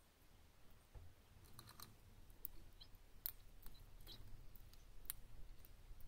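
Faint, irregular sharp clicks of ultramarine grosbeaks cracking seeds in their beaks.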